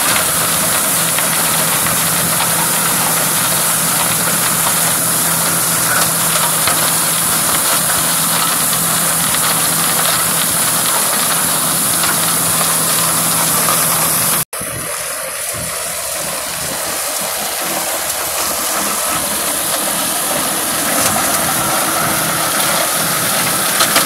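Kubota M854K tractor's diesel engine running steadily under load while its rear-mounted flail mower shreds dry crop stubble. The sound breaks off for an instant about halfway through and carries on slightly quieter.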